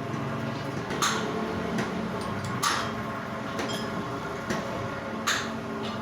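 Lathe running steadily with a low pitched hum, with a few sharp metallic knocks at irregular moments over it.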